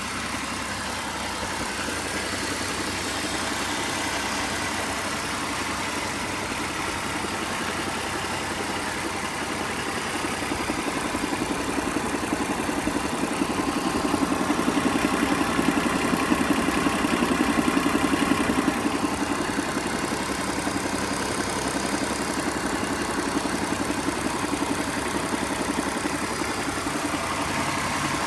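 BMW M54B22 2.2-litre straight-six engine idling with a noise the owner calls strange. It grows louder from about ten seconds in and eases back a little before twenty seconds.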